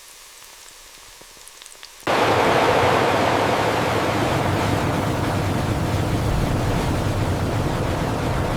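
A faint hiss, then a loud, steady rushing noise that starts abruptly about two seconds in and holds.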